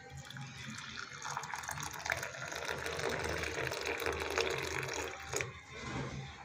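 Hot milky ginger tea poured in a thin stream into a ceramic teacup on its saucer: a steady splashing pour that fills the cup and stops about five and a half seconds in.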